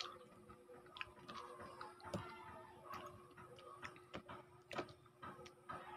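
Scattered soft clicks and taps, irregular and about one a second, from a hand handling a clear plastic dip cup while eating fruit, among quiet chewing.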